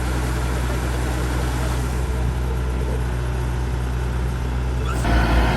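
Rice combine harvester's engine running steadily under the clatter of its machinery. About five seconds in, the sound abruptly becomes louder and fuller.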